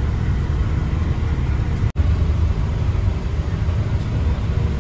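Steady low rumble with a faint hiss above it, cutting out for an instant about two seconds in.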